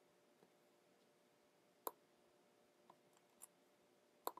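Near silence over a faint steady hum, broken by two sharp clicks about two and a half seconds apart and a couple of fainter ticks between them, from work at a computer's mouse and keyboard.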